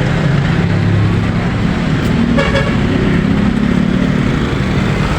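Road vehicle's engine running steadily amid traffic noise, with one short horn toot about two and a half seconds in.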